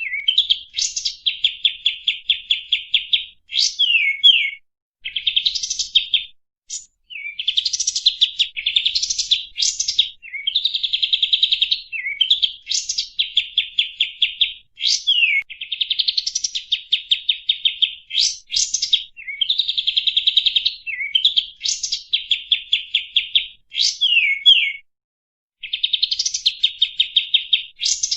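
A kapas tembak bird singing in repeated phrases. Each phrase is a fast, rattling run of high chirps mixed with quick sweeping whistled notes, separated by short pauses. The recording is a lure song (suara pancingan) meant to set other birds singing.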